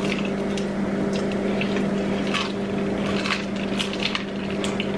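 Close-up chewing of crispy fried chicken: wet, squishy mouth sounds with irregular short crunchy crackles. A steady low hum runs underneath.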